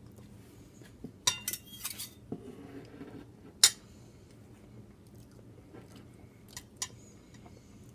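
A metal fork clinking against a plate: a quick run of clinks about a second in, one sharp, loud clink in the middle, and two lighter taps near the end.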